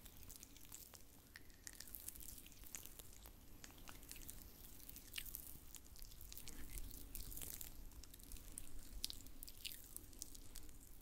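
Oiled hands being rubbed and worked close to the microphone in an oil-massage sound, giving faint, irregular wet clicks, crackles and squishes.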